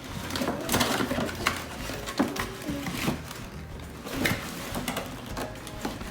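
Toy packaging being worked at by hand: irregular rustling and plastic clicks as an RC car is pried out of its box.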